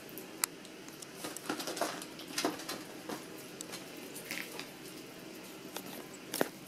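Young fox squirrels eating nuts at close range: irregular sharp clicks and crunches, the sharpest about half a second in and near the end.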